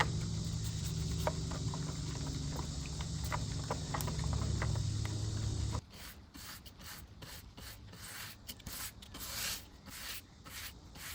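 A steady low hum with scattered small clicks and taps, cutting off abruptly about six seconds in; then a quieter run of short, repeated rubbing strokes on wood.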